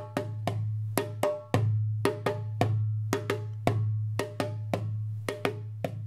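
A hand drum beaten in a steady rhythm, about four strokes a second, with a low ringing tone held beneath the strokes.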